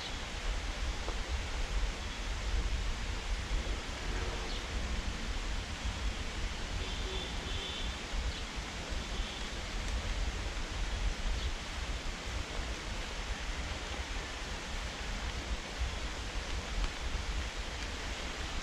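Steady hiss of rain falling outdoors, with wind rumbling on the microphone.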